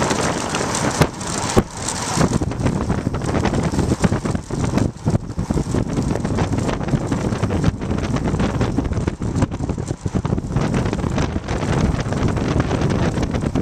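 Wind buffeting a bike-mounted camera's microphone during a fast road-bike descent, a steady dense rush. Scattered sharp knocks and jolts come through as the homemade camera mount bounces, the strongest about a second and a half in.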